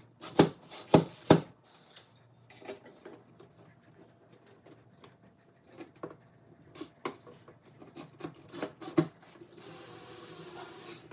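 Clicks and knocks of a metal light-fixture mounting plate and its screws being worked into a ceiling electrical box with a screwdriver: three sharp knocks in the first second and a half, then scattered light clicks, and a short steady rasping scrape near the end.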